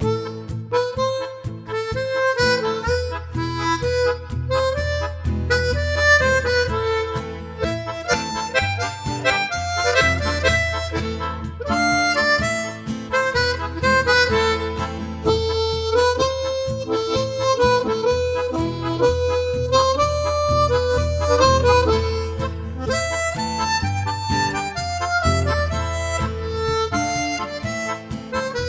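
Background music: a harmonica melody over a steady bass line.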